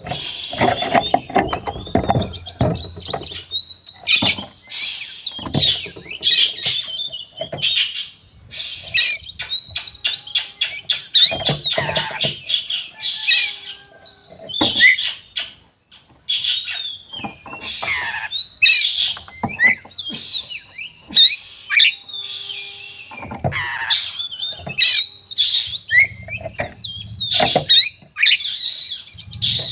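Male Oriental magpie-robin (kacer) singing in agitated fighting mode: fast chattering runs, harsh squawks and rising and falling whistled phrases in quick bursts with short breaks. This is the aggressive challenge song used as a lure to provoke other magpie-robins into singing.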